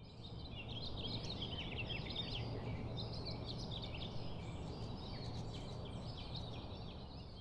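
Many small birds singing and chirping together in a morning chorus, over a faint steady low hum, fading in at the start.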